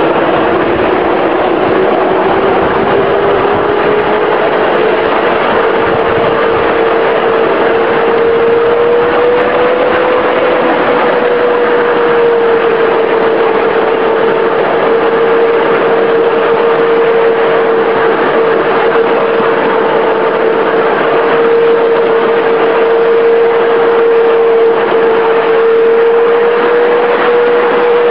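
Electric motor of a 5-inch gauge electric shunter locomotive whining steadily as it runs, the whine rising in pitch over the first few seconds as it gathers speed and then holding fairly level. A steady rushing noise runs underneath.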